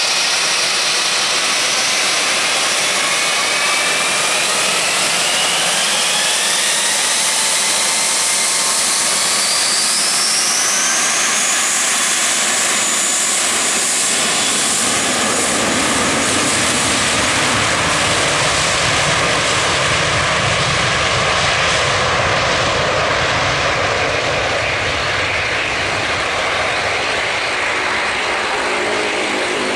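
Jetstar Airbus A320-232's IAE V2500 turbofan engines running up for takeoff: a loud jet whine rising in pitch over the first several seconds, then a deep rumble building from about halfway through.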